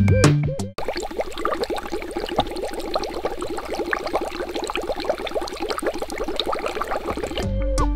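Water bubbling: a dense, even stream of small bubbles that starts about a second in and stops shortly before the end.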